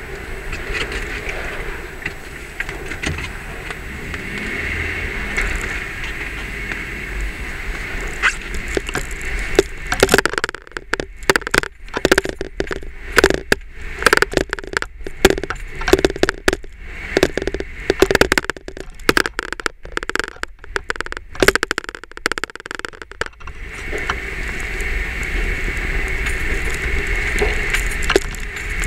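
Jeep running slowly over a rough tunnel floor, heard from inside the cab as a steady engine and road hum. From about ten seconds in until about twenty-three seconds, the camera chatters against the front windshield in a rapid, irregular run of taps, then stops.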